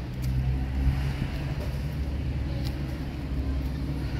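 Steady low rumble of an engine running, with a faint click or two.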